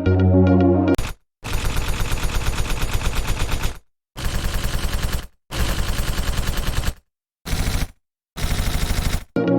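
Machine-gun fire sound effect: five bursts of rapid, evenly spaced shots with short silences between them. It comes in after electronic music cuts off about a second in.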